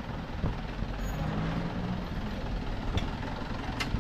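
Street traffic rumble: vehicle engines running and passing, with a faint engine hum about a second in and a single sharp click near the end.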